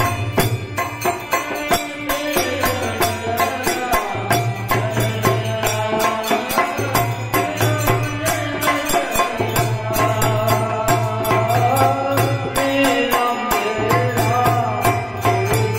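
Men singing a folk song to a harmonium, with a dholak drum and small hand cymbals keeping a steady beat.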